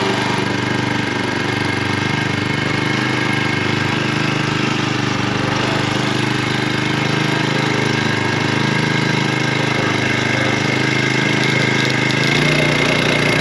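Small 4 hp four-stroke outboard motor running steadily just after a cold start. It has no neutral, so it runs in gear. Its note shifts and grows a little louder near the end.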